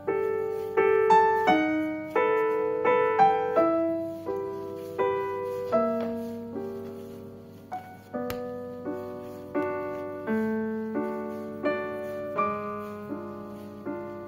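Background music: solo piano playing a slow, gentle melody, each note struck and left to fade, about one or two notes a second.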